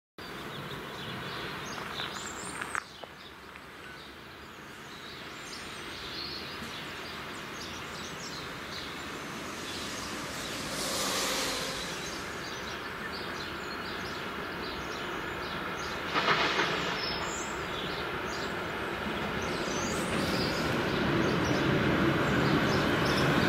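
An electric locomotive hauling a long freight train of hopper wagons approaches, its rumble growing steadily louder toward the end. Two brief swells of louder rushing noise come around the middle, and birds chirp now and then.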